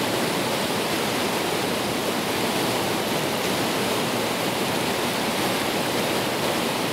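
Steady rush of a fast mountain river running bank full with glacier meltwater, an even hiss with no breaks.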